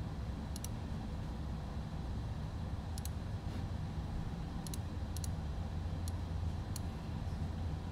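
Computer mouse clicking, about seven sharp clicks spaced irregularly, over a steady low background hum.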